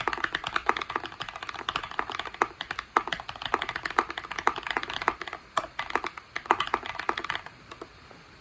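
Fast typing on a Tofu60 custom mechanical keyboard built with a brass plate and PE foam mod: a quick, steady run of keystroke clicks that stops about seven and a half seconds in, with a couple of last light taps after.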